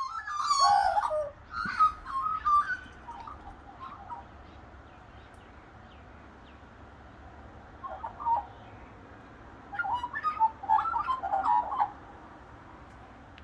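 Australian magpies carolling: fluting, warbling calls in a busy flurry at the start, a lone short call in the middle, and a second flurry about ten seconds in.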